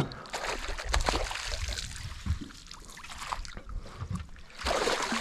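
Water splashing and trickling beside a small boat as a hooked smallmouth bass is played at the surface and a landing net is dipped in, with a few light knocks. The splashing gets louder near the end.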